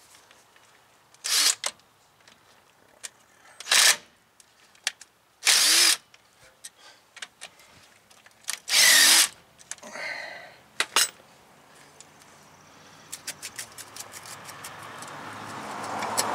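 Cordless power tool spinning the brake caliper bolts out of a truck's front caliper in four short bursts. Near the end comes a growing clatter of metal scraping and knocking as the caliper is worked off over the rotor's worn lip.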